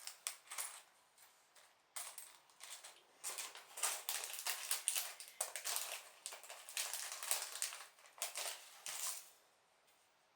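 Loose plastic LEGO bricks clattering and clicking against each other as a hand rummages through a pile of them, dying away near the end.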